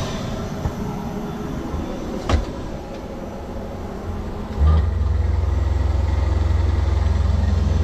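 A sharp knock a couple of seconds in, then the private jet's lavatory flush motor starts at a button press and runs with a loud, steady low hum. The lav has no water cycling through it, so the flush runs dry.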